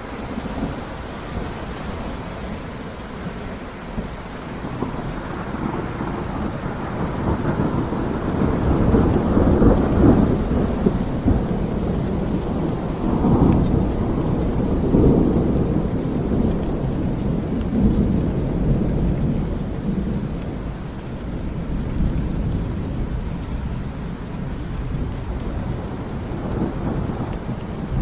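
Steady rain with a long roll of low thunder rumbling through it, swelling to its loudest about ten seconds in and fading slowly after fifteen.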